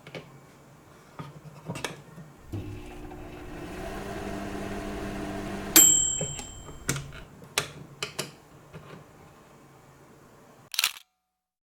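Added kitchen sound effects: light clicks and taps, then a steady electric hum for about three seconds that ends in a single bright ding, followed by more taps and a short louder clatter before the sound cuts off.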